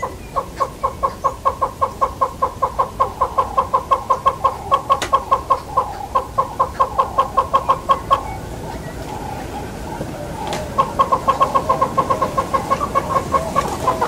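Southern yellow-billed hornbill calling: a long run of rapid notes, about five a second, that breaks off about eight seconds in and starts again some three seconds later.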